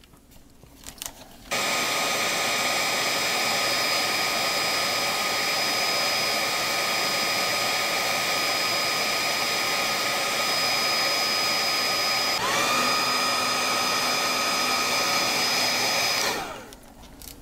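Electric heat gun switched on about a second and a half in and blowing steadily with a fan whoosh and a thin whine, shrinking heat-shrink tubing; its tone shifts slightly about twelve seconds in, and about a second before the end it is switched off and winds down.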